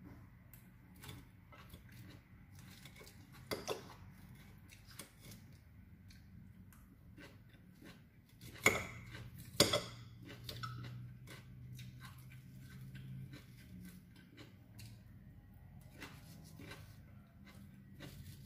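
A metal fork clinking and scraping against a salad bowl and plate during eating, with two sharp clinks about a second apart near the middle as the loudest sounds, and quiet chewing between.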